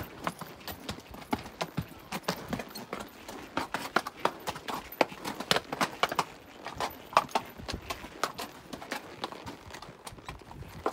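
Hooves clip-clopping on bare rock as a ridden animal walks a rocky trail: sharp, uneven strikes, several a second.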